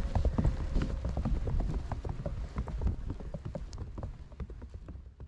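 Footsteps crunching through fresh snow at a steady walking pace, with gusting wind buffeting the microphone; the sound fades out toward the end.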